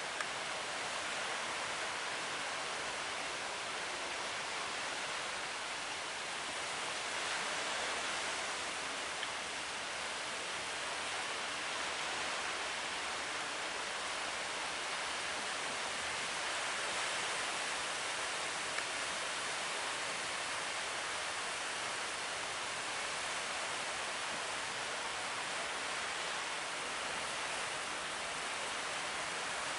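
Steady rushing of wind and sea water around a boat rolling in heavy swell, swelling slightly a couple of times.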